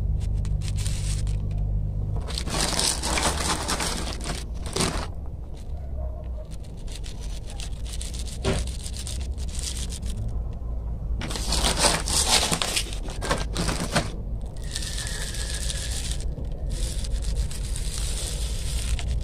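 Volcanic gravel bonsai substrate poured from a plastic soil scoop into a plastic basket pot, in several gritty pours with scraping in between.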